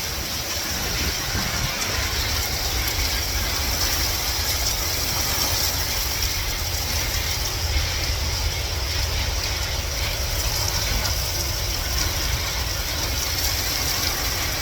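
Steady rain falling, a dense patter of drops, over a constant low rumble.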